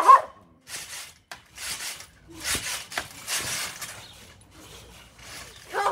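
Repeated rustling, scraping swishes, roughly one a second and uneven, with a few short sharp clicks among them.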